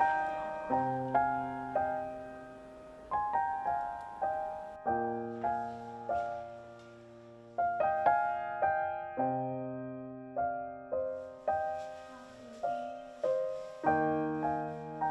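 Gentle background piano music: a slow melody of single notes, each fading after it is struck, over low bass notes held for a second or two.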